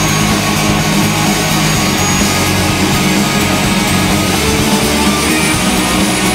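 Loud rock music, heavy and guitar-driven, playing steadily.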